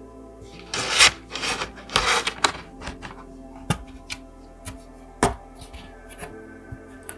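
Laptop parts being handled by hand during a RAM upgrade: two rubbing, sliding scrapes in the first half, then a few sharp clicks and taps, the sharpest about five seconds in, over soft background music.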